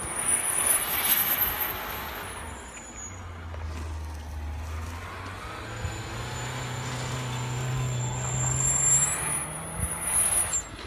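Engine of a Subaru SUV revving up and down as it spins doughnuts in deep snow, with its wheels spinning and throwing snow.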